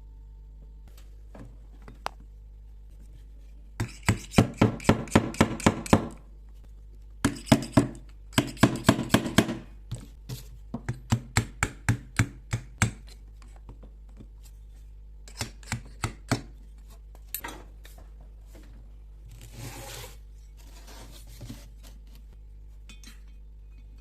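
Hand tools working on small metal carburetor parts: bursts of quick, sharp clicking strokes, about four to five a second, then more spaced single strikes. A short rasping noise comes near the end.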